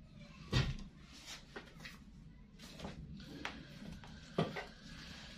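Light handling noises of sewing tools on a cloth-covered cutting table: a tape measure being picked up and moved. One sharp knock about half a second in, then scattered small clicks and knocks.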